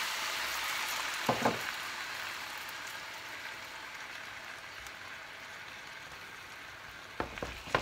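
Balsamic vinegar sizzling in a hot dish of fried potatoes and onions, loudest just after it goes in and slowly dying down. A short knock about a second and a half in and a few more near the end.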